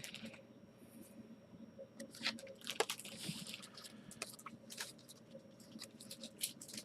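Baseball trading cards being handled and flipped through: faint, irregular soft clicks and brief rustles, a little denser about three seconds in.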